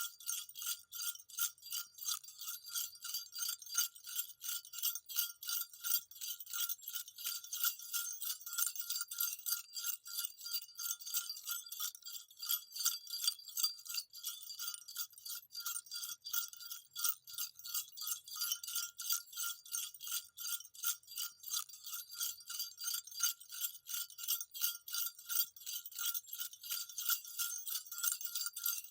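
Small jingle bells shaken continuously in a quick, even rhythm, giving a bright, steady tinkling jingle.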